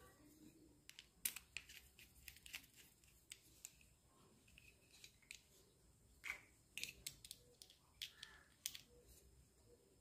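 Faint, irregular small clicks and taps of hands handling a plastic inline bed switch and its wires.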